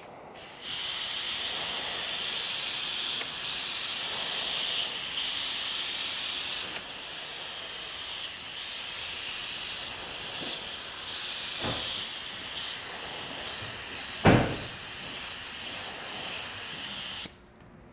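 Compressed-air hiss of an HVLP gravity-feed spray gun with a 1.3 mm tip, trigger held at about 15 PSI while spraying 2K primer. It starts about half a second in, eases slightly around the middle, and cuts off just before the end, with two brief knocks partway through.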